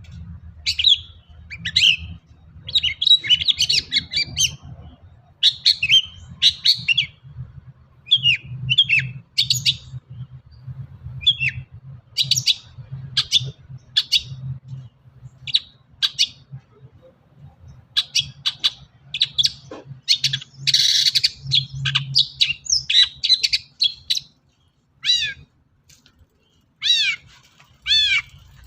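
Long-tailed shrike (cendet) singing a rapid, varied song of short chirps and whistles packed with mimicked phrases, with a harsh rasping call about two-thirds of the way through and a few falling whistled notes near the end. A low hum runs underneath.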